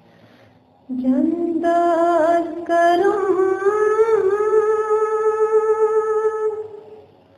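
A solo voice singing unaccompanied, entering about a second in with a rising, ornamented phrase and then holding one long note that fades away near the end.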